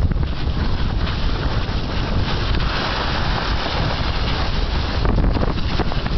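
Wind buffeting the microphone while skate skiing, with the steady hiss and scrape of skis gliding over groomed snow, the hiss swelling around the middle.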